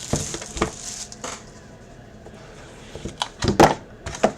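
Card-box packaging being opened and handled: plastic wrapper crinkling, with sharp clicks and knocks. There are a few knocks near the start and a louder cluster of them near the end.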